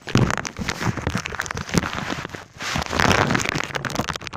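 Shallow water splashing and sloshing as people wade through it, a dense crackly spattering in two long spells with a brief lull about two and a half seconds in.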